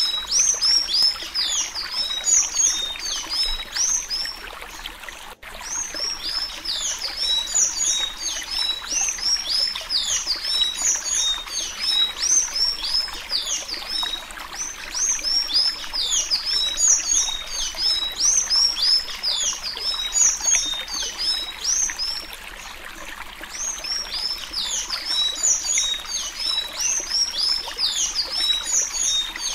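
Sanhaço-azul (a Thraupis tanager) singing the Alagoas 'suí suí' song type: a fast, unbroken stream of high, squeaky whistled notes that slide up and down, easing off briefly twice.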